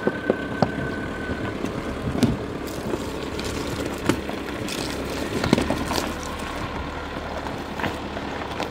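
Tata Harrier SUV crawling over loose rocks, its diesel engine running steadily while stones crunch and knock under the tyres.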